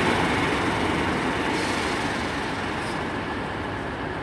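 Class 153 single-car diesel railcar pulling into the platform: a steady rumble of engine and wheels that slowly fades as the train slows.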